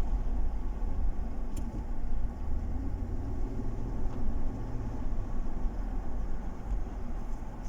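2012 Chevrolet Tahoe's V8 engine running under light throttle while driving, a low rumble that swells a little in the middle, with an intermittent misfire (stumble) on cylinder 5 that the owner traces to a spark plug with a cracked ceramic insulator.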